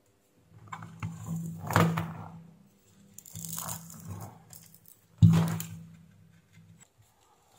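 Rustling and scraping handling noise of an ATX power supply circuit board being turned over in the hands, in several bursts, with a sharp knock about five seconds in.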